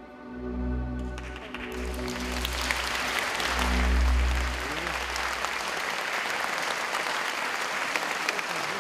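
The last sustained chords of the ballet's music, which fade out about five seconds in, while an audience starts applauding about a second in. The applause swells and takes over as the music ends.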